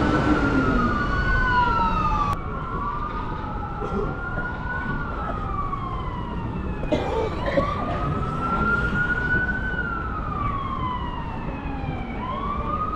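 Emergency vehicle siren in a slow wail, its pitch rising and then falling away in long cycles of about five to six seconds, over the low rumble of street traffic. A sharp click sounds about two and a half seconds in.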